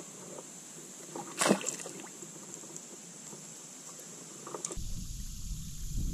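A released smallmouth bass drops back into the river with one sharp splash about a second and a half in, over a steady high insect drone. Near the end a low rumble of wind on the microphone comes in.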